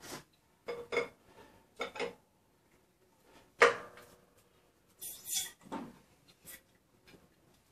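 Bottle jack of a hydraulic shop press being pumped by its handle to press a bush into a Land Rover Defender radius arm: a series of metallic clicks and clanks, the loudest a ringing clank about three and a half seconds in.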